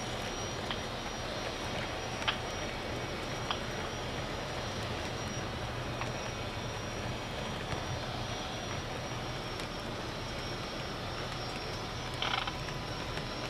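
Model train of brass heavyweight passenger cars rolling past on the track: a steady rumble of wheels with a low hum, a few sharp clicks, and a brief clatter about twelve seconds in.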